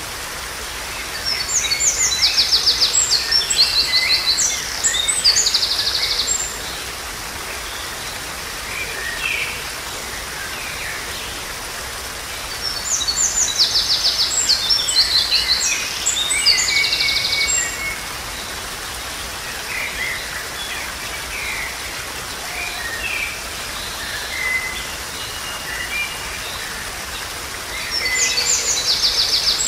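Small rocky waterfall splashing steadily, with a songbird singing three stretches of rapid high trills and chirps about twelve seconds apart and short calls in between.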